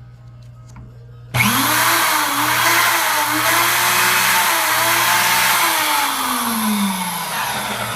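Magnetic drill starting up about a second and a half in and running loud while boring through 3/16-inch steel plate; its motor pitch wavers and then sags lower near the end as the cut loads it down.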